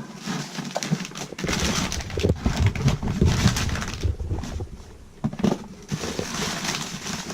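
Close handling noise of product packaging: rustling, rubbing and small bumps of boxes and bottles being turned over in the hands.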